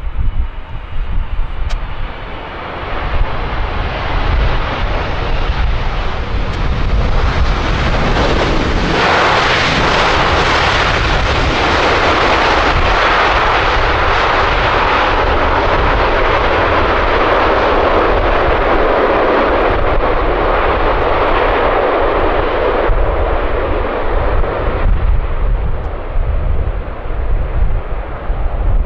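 Jet airliner on approach to land passing the microphone: the engine noise swells, holds loud for about fifteen seconds, then fades away. A low wind rumble on the microphone runs underneath.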